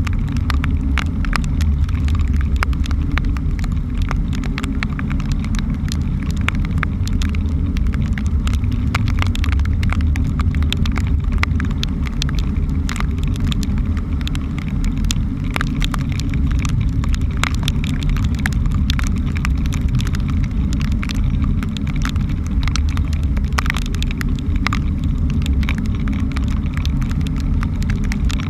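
Steady, muffled low rumble of a fishing boat running through rough sea, with many sharp, irregular ticks of raindrops and spray striking the camera.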